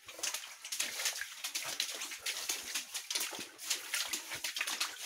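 Footsteps splashing and sloshing through shallow water on a mine tunnel floor, an irregular run of small splashes echoing off the stone-arched walls.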